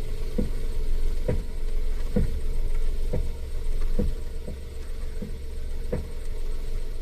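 Steering rack of a Honda Life JB1 knocking when the wheel is turned: dull clunks about once a second over a steady low engine hum. This is the knock that is fixed by fitting a rebuilt steering rack, a known weak point on this model.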